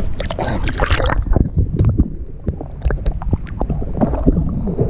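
Wind rumbling on the microphone of a small fishing boat, with scattered knocks and splashing, gurgling water as a hooked fish is brought in alongside.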